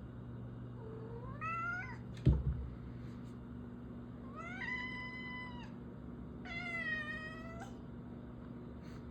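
Domestic cat meowing three times, long drawn-out calls, the first rising in pitch, in a bid to be let outside. A single sharp thump sounds just after the first meow.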